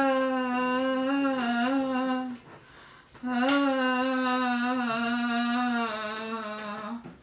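A labouring woman vocalizing through a contraction in two long, held, low tones, each lasting about three to four seconds with a short break between them.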